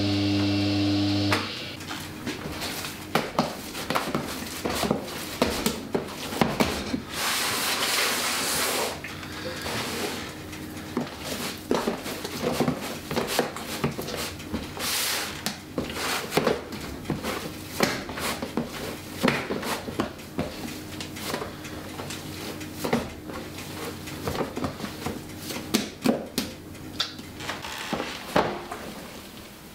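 Hands working dough in plastic tubs on a stainless steel bench: irregular knocks and taps of the plastic containers against the bench, with a brief hiss about eight seconds in. A steady hum cuts off about a second and a half in, and faint background music runs underneath.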